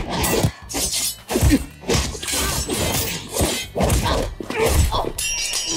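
Fight-scene sound effects from a film: a quick run of hits, kicks and crashes, one after another.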